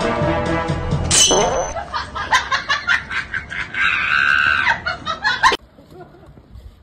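Background music stops abruptly about a second in. A person's shrieking and laughing follows in short bursts, with a long high shriek around four seconds in, and cuts off suddenly near the end.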